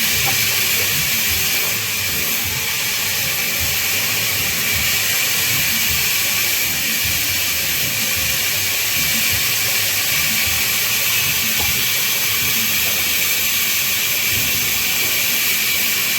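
Band saw running with a steady, unbroken hiss, typical of the blade working through babool wood.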